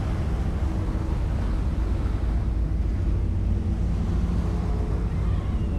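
Steady low rumble of a passenger ferry's engine underway, with wind on the microphone.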